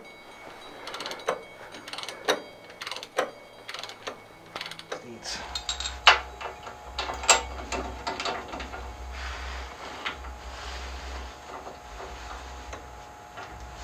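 Wrench being worked on a steel bolt on a tractor, with irregular sharp metallic clicks and taps. A low steady hum comes in about five seconds in.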